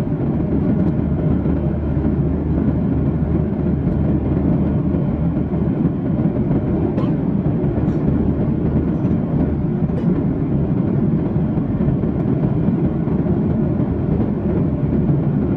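Steady low rumble of engine and airflow noise inside the cabin of a Boeing 737-800 airliner, with a few faint clicks.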